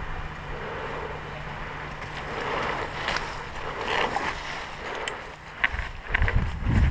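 Rustling and scuffing of a player moving on foot with a body-mounted camera, with a few sharp clicks about five seconds in and heavy thuds of running footsteps near the end.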